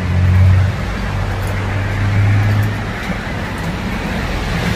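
Road traffic noise: cars passing, with a steady low engine hum.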